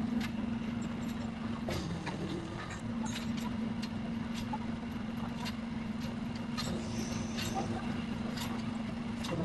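A motor running with a steady hum, with scattered sharp clinks and knocks throughout.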